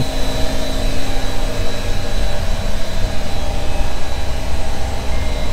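Steady machinery drone in a motor yacht's engine room: an even hum with several held tones.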